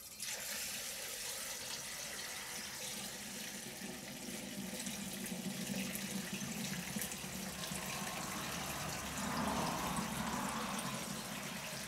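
Fermenting loganberry wine poured in a steady stream from a plastic bucket through a funnel into a glass demijohn, the jar filling as the pour goes on.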